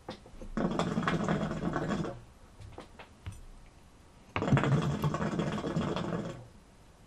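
Hookah water bubbling as smoke is drawn through the hose, in two pulls of about a second and a half to two seconds each.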